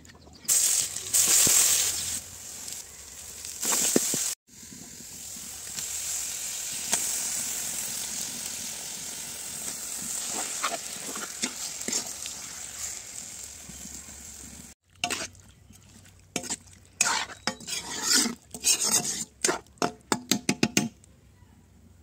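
Mutton in spice paste sizzling in hot oil in a black iron kadai, with a loud burst of sizzling about half a second in and a steady frying hiss after it. Near the end a metal spoon scrapes and clicks against the pan in quick strokes as the meat is stirred and turned, the kosha stage of frying meat in its masala.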